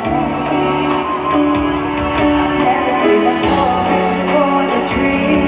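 Live concert music: a female pop vocalist singing a ballad over a band, with sustained notes and a steady beat.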